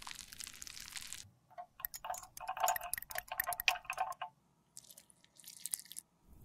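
A metal stirring rod clinking quickly and ringing against a small glass beaker as melted lipstick is stirred, after a soft hiss at the start. Two short scraping or dripping bursts follow near the end.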